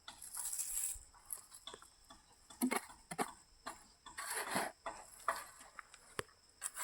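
Intermittent rustling and scraping with a few sharp clicks, one about six seconds in, from soil and potato plants being handled while potatoes are dug up by hand.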